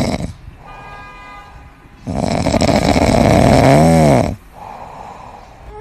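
Sleeping cat snoring: a loud breath ends just after the start, then a quieter breath with a faint whistle, then a long loud snore about two seconds in. That snore lasts about two seconds and ends in a wavering tone.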